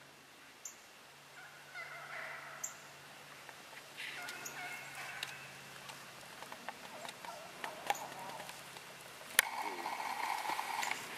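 Wild turkey gobbling several times, a rapid rattling call, the loudest gobble near the end just after a sharp click.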